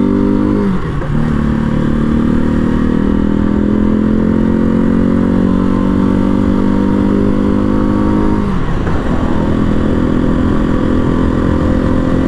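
Janus Phoenix 250's single-cylinder engine pulling under acceleration, its pitch climbing steadily. The revs drop briefly twice, about a second in and again about two-thirds of the way through, as the rider shifts up a gear.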